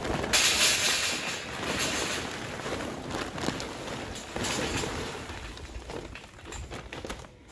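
Kingsford charcoal briquettes pouring out of a paper bag into a steel charcoal basket with expanded-metal mesh sides, a continuous clattering rattle of lumps tumbling onto lumps and metal. It is loudest in the first second, swells again about halfway through, then thins out as the bag runs empty.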